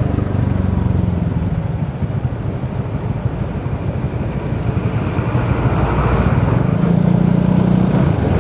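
Motorcycle engine running under the rider with road and wind noise. It eases off for a couple of seconds, then rises in pitch as it picks up speed again from about halfway.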